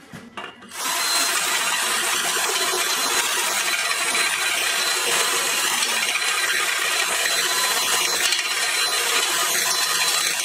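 Cordless drill with a large bit reaming out a slightly undersized hole in a square steel tube, the bit cutting metal. It starts about a second in and runs steadily without stopping.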